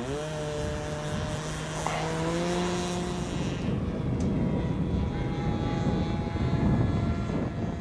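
Radio-controlled model plane's engine and propeller running up. The pitch rises sharply at the start and holds a steady drone for about three seconds as the plane takes off. It then grows fainter and mixes with rushing noise as the plane flies off.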